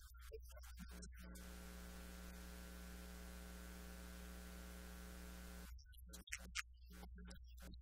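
Faint, steady electrical mains hum with a buzzing row of even overtones. It stands out on its own for about four seconds in a pause, between short, choppy, noise-gated fragments of a man's voice.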